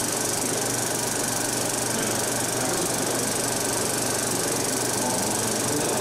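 35mm film projector running, its mechanism making a fast, even, rhythmic clatter.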